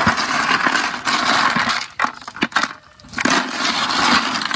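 Susong palipit freshwater snail shells clinking and rattling against each other as the catch is handled, a dense run of small hard clicks in bursts with brief pauses.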